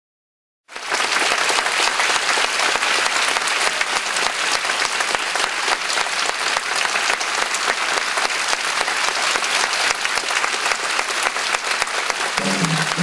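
Theatre audience applauding, dense steady clapping that starts abruptly about a second in. Music begins near the end.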